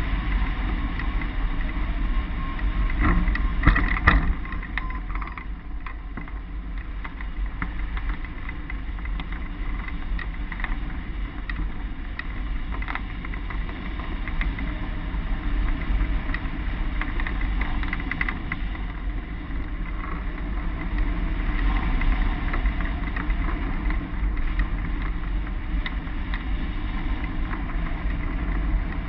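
Wind rushing and buffeting over the microphone of a camera mounted on a hang glider in flight, with a short cluster of sharp clicks and rattles about three to four seconds in.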